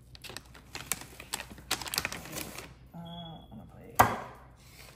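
Knife cutting through a raw salmon fillet on butcher paper: a quick run of clicks and scrapes as the blade works through the fish and taps the counter beneath the paper. A sharp knock about four seconds in is the loudest sound.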